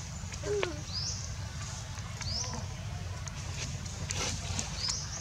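Baby macaque giving three short, rising, high-pitched squeaks while an older macaque pins it down, over a steady low hum.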